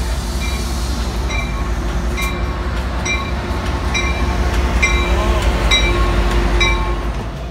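Metrolink diesel locomotive hauling a train of bilevel commuter cars along the platform, its engine rumble growing louder as it passes close. A bell rings about once a second throughout.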